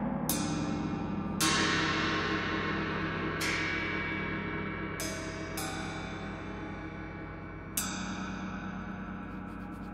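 Gongs struck one after another with a mallet, six strikes in all, each ringing on and slowly fading under the next, so that their tones overlap into a shimmering wash. The second strike, about a second and a half in, is the loudest.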